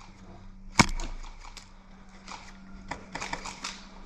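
An airsoft gun firing a single sharp shot about a second in, then a scatter of lighter clicks and knocks near the end.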